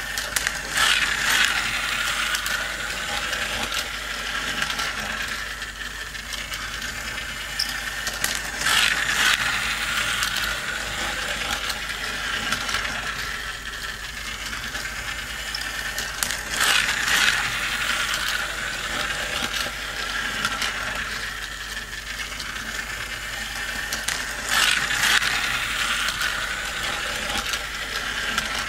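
Battery-powered toy race set running: plastic gears and mechanism whirring and ratcheting steadily as the toy cars travel around the plastic track. It swells louder about every eight seconds.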